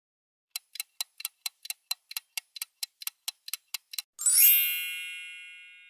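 Countdown timer sound effect: a clock ticking about five times a second for roughly three and a half seconds, then a bell-like chime about four seconds in that rings out and fades slowly, marking time's up.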